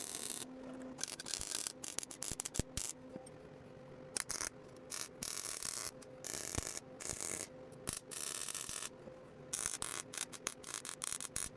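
Welding arc crackling in short, irregular bursts with brief pauses between them, as welds are laid on a rear axle housing, with a faint hum coming and going.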